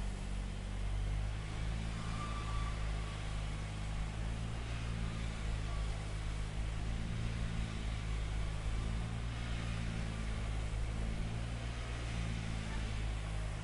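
A construction machine's engine running steadily at idle, a low, even hum.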